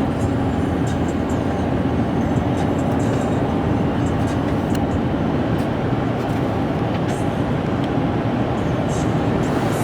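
Steady road and engine noise of a car driving, heard from inside the cabin: a constant low rumble with no breaks.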